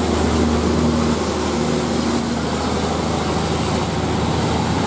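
Bus engine running steadily under a broad rushing noise, with no horn sounding.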